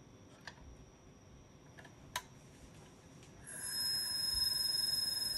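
The spindle motor of an IBM XT's 10 MB full-height hard drive, cover off and kickstarted by hand. A few light clicks come first. About three and a half seconds in, the motor catches and runs with a steady high-pitched whine as it draws current. The drive will hardly spin up under its own power after 25 years of sitting.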